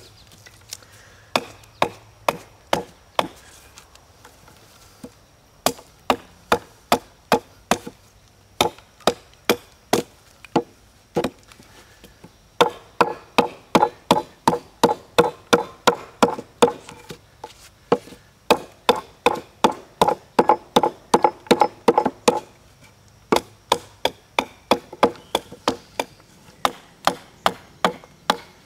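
Small hand-forged hatchet chopping into a piece of wood on a wooden bench: quick, sharp blows at about two to three a second, in runs of several strokes with short pauses between them.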